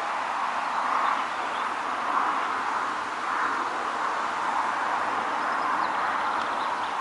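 Steady pond-side outdoor ambience: a continuous rushing noise that swells and eases every second or two, with a few faint high bird chirps about five to six seconds in.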